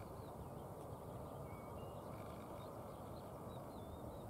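Small birds chirping and whistling, many short calls, over a faint steady low rumble.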